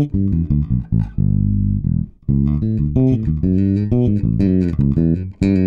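Electric bass guitar played slap style, a busy run of short, percussive notes with sharp, bright attacks. This is the dry sound of the bass, with no compression applied.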